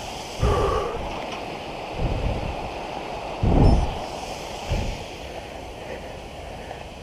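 Wind gusting on the camera microphone: a steady rushing hiss with about four low buffeting rumbles, the strongest near the middle.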